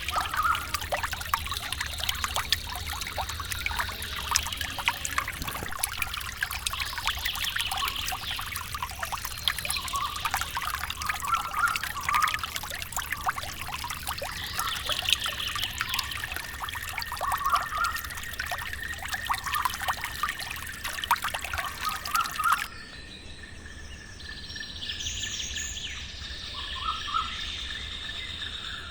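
Birds chirping over the fizzing crackle of trickling, pouring water. The sound cuts off suddenly near the end to a quieter stretch with only a few chirps.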